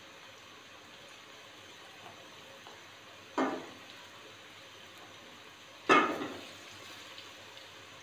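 Besan-battered eggplant slices deep-frying in hot oil, a steady bubbling sizzle. It is broken twice, about two and a half seconds apart, by a sharp knock that fades quickly.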